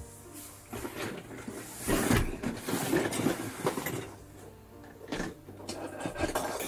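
Hands handling small RC kit parts and their packaging: a stretch of rustling and clattering about two seconds in, then a few light clicks and knocks.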